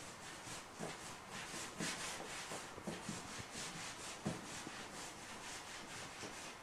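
Faint rubbing and soft, irregular taps of fusilli dough being rolled by hand around a thin rod on a wooden pasta board.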